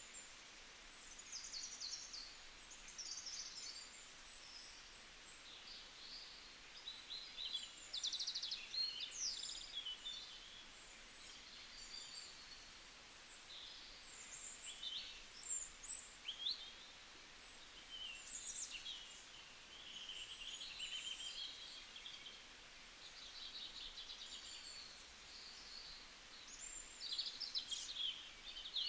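Several small songbirds chirping and trilling, calls overlapping in short high bursts throughout, over a faint steady hiss of forest ambience.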